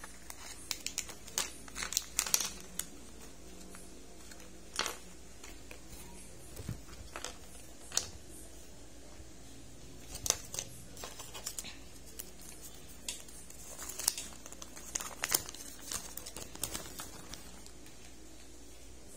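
Crinkling and tearing of Kinder Joy packaging as it is handled: the peel-off lid of the toy pod, the small paper wrappers and the folded leaflet. The crackles come in scattered clusters: at the start, around the middle and again toward the end.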